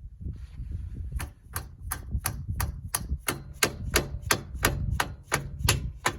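A steady run of sharp metallic hammer taps, about three a second, starting about a second in.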